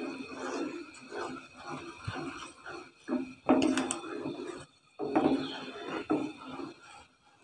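A spoon stirring and scraping sugar and water around a cooking pot, in irregular strokes, while the sugar dissolves for syrup.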